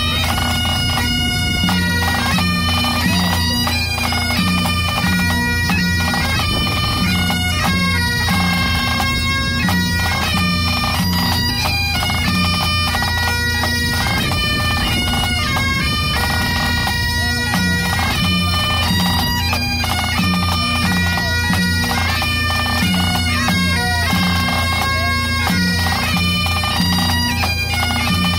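Pipe band playing: Highland bagpipes sound a tune over their steady drones, with a snare drum and a tenor drum beating time.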